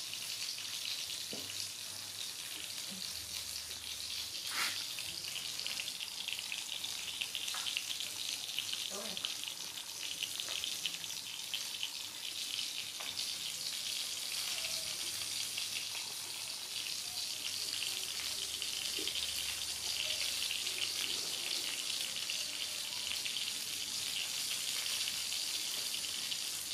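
A steady crackling hiss, with a few faint short knocks here and there.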